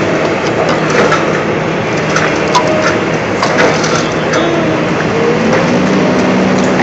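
Hydraulic excavator running steadily while its demolition shear grips and works a steel roof beam, with scattered metallic creaks and sharp clicks as the jaws bite.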